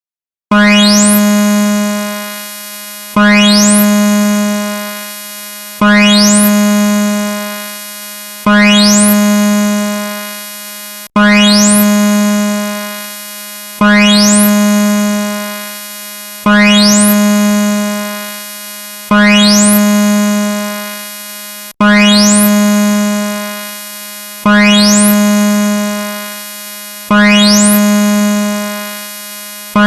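Synthesized emergency-alert alarm tone: a loud, low note rich in overtones, with a quick rising sweep at each attack, repeating about every two and a half to three seconds and fading between strikes.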